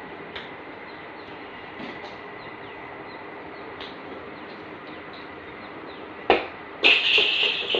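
A single thump about six seconds in, a ball hitting the tiled floor, followed soon after by a loud high-pitched sound lasting about a second, over a steady background hiss.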